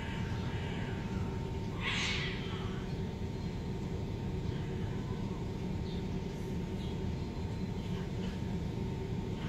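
Steady low rumble of street traffic, with one brief harsh noisy sound about two seconds in.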